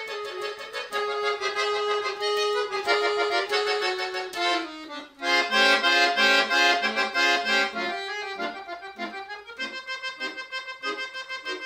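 Chromatic button accordion played solo: a fast run of notes, a brief break about five seconds in, then loud full chords, turning to short detached notes over a held higher note near the end.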